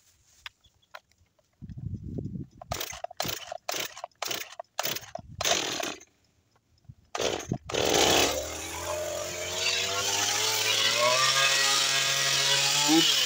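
Two-stroke chainsaw being pull-started: a run of quick, short bursts from pulls on the starter cord, then the engine catches about eight seconds in and keeps running. Its pitch climbs steadily as the throttle is opened, and it drops briefly near the end.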